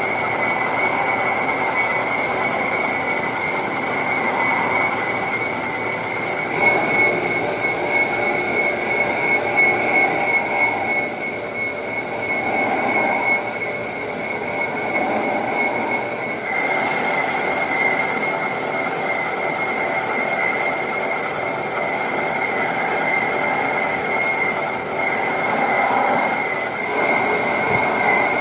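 Metal lathe cutting a cast iron V-belt pulley, the cutting tool giving a steady high-pitched squeal over the rough noise of the cut.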